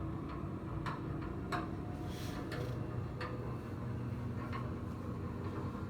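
Electric treatment table's motor running steadily as it raises the leg section, with scattered irregular clicks.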